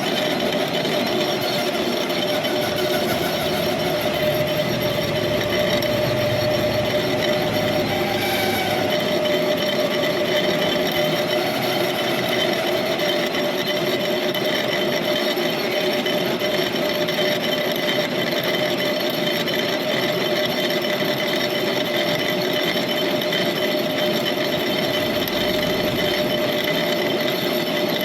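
Metal lathe running steadily as it turns the built-up bearing seat of a wheel hub, a constant machine hum with a thin metallic whine from the cut.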